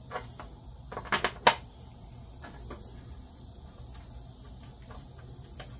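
Crickets trilling steadily, one unbroken high tone. About a second in come two or three sharp light clicks of a bolt and washer being fitted by hand to a motorcycle fairing.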